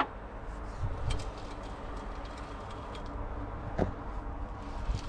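Spider excavator diesel engine being turned over by hand: a few scattered clicks and knocks over a steady low background. The engine turns freely and feels like it has absolutely zero compression.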